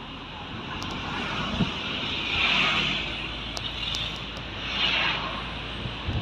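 Street traffic noise: a steady wash of passing vehicles, swelling twice as vehicles go by.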